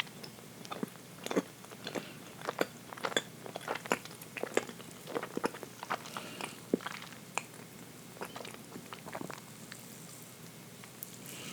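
Close-up chewing of dense chocolate cake: a run of short, wet mouth clicks and smacks, thick for most of the stretch and thinning out near the end.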